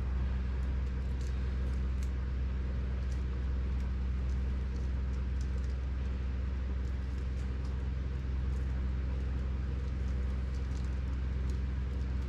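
A steady low hum with faint, scattered light clicks and ticks, as of small metal parts and tools being handled.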